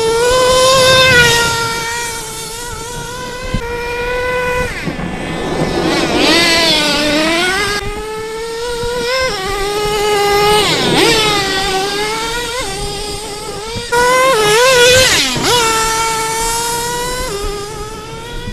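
Traxxas T-Maxx nitro RC monster truck's small two-stroke glow engine running at high revs, a high-pitched steady note that drops and climbs again several times as the truck slows and speeds back up.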